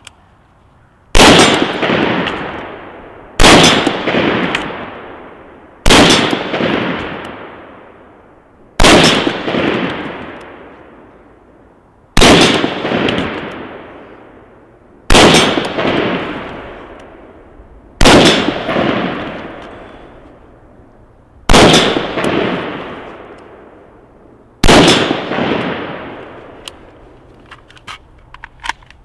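Nine single shots from an M4-style carbine, one every two to four seconds, each loud crack followed by a long echo that dies away over a couple of seconds.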